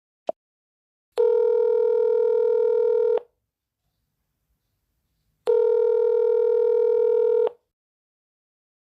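Zangi Messenger call tone: a short blip, then two long steady beeps of about two seconds each, a couple of seconds apart, in the pattern of a telephone ringback tone.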